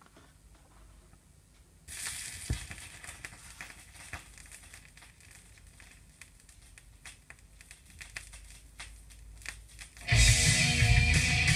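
Pioneer PL-X55Z turntable's stylus settling into the lead-in groove of a vinyl LP about two seconds in, with a knock, followed by surface hiss and crackle with scattered clicks. About ten seconds in, the record's music starts loud, with guitar.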